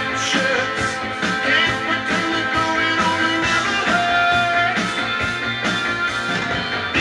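Music playing from a vinyl record on a Dual 1257 belt-drive turntable.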